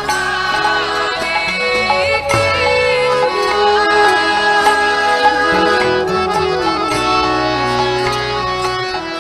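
Bansuri (bamboo transverse flute) playing a gliding melody over steady held accompaniment tones and light percussion strokes.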